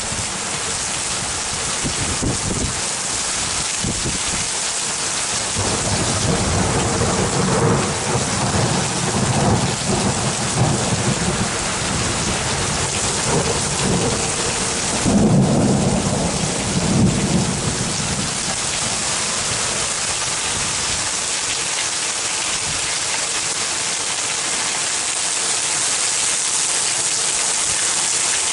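Steady rain with long rolls of thunder rumbling through the middle, the loudest peal about halfway through.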